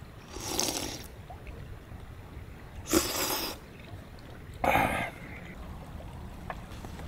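A person slurping hot udon noodles and broth: three short slurps, the second the loudest, over a steady low background rumble.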